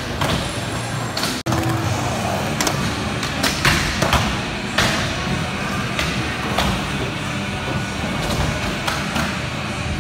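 Skateboards rolling on wooden ramps with a series of sharp thuds and clacks as boards are popped and landed, over a steady low rumble of wheels.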